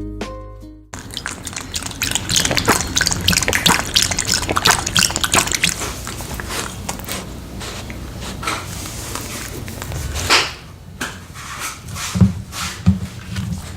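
Dog eating rotisserie chicken close to the microphone: wet smacking and licking mouth sounds, with many quick irregular clicks, and a slower stretch of fewer, separate smacks near the end.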